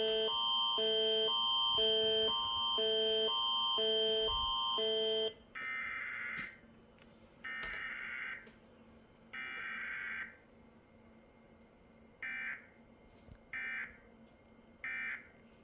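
Emergency alert tones: the Canadian alerting attention signal, two chords alternating about every half second, ends about five seconds in. Then come three roughly one-second bursts of EAS SAME digital header data, followed near the end by three shorter data bursts, typical of the end-of-message code.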